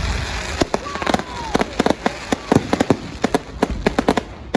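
Fireworks crackling: a rapid, irregular string of sharp pops, several a second, with a short falling whistle about a second in.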